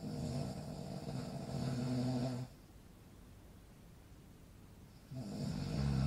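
A man snoring: one low-pitched snore lasting about two and a half seconds, a pause of nearly three seconds, then the next snore starting near the end.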